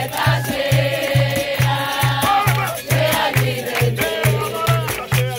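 Capoeira roda music: a group singing the chorus of a capoeira song over a steady atabaque drum beat about twice a second, with berimbaus and hand clapping.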